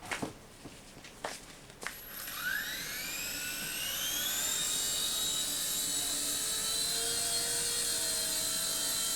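A few light clicks, then about two seconds in the C119 four-channel micro RC helicopter's electric motor spins up with a rising whine and settles into a steady high whine as the rotors run, the helicopter working normally.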